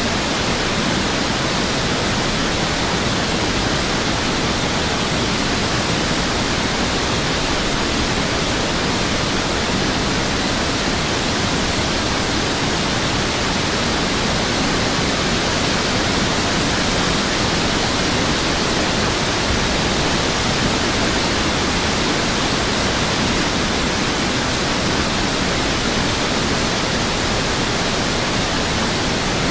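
A flooded river rushing: a steady, unbroken wash of water noise with no rhythm or changes.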